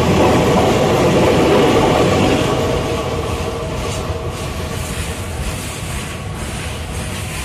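Passenger train coaches rolling past at speed on the rails: a loud, steady rumble and rattle of wheels and bodies that eases off about two and a half seconds in as the last coach draws away.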